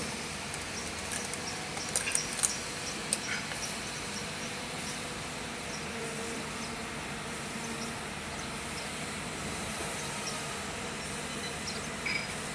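Steady engine hum of construction-site machinery running, with a few sharp knocks about two to three seconds in.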